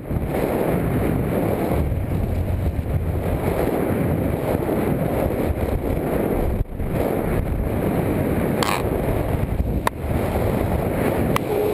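Wind rushing steadily over the camera microphone during a parachute descent. A few light clicks come in the last few seconds.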